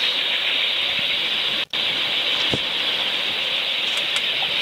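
A steady, even hiss with a momentary cut-out about one and a half seconds in.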